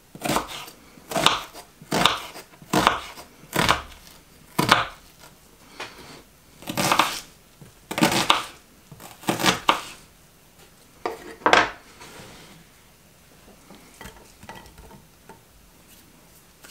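Kitchen work with pots, dishes and utensils: a run of sharp knocks about one a second, then a few longer clattering scrapes and more knocks, dying down to faint ticks for the last few seconds.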